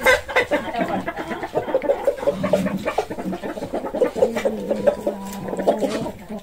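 Spoon stirring and scraping semolina upma in a heavy kadhai, a rapid run of short clicks. Over it, an animal in the background gives many short pitched calls.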